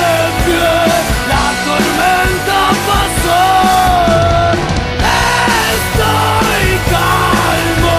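Hard rock-punk band music: electric guitar, bass and drums over a steady beat, with long held notes that bend in pitch on top.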